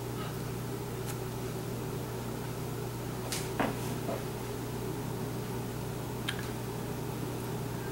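Steady low hum of a running household appliance or air handler in a small room, with a few faint light clicks, the sharpest about three and a half seconds in.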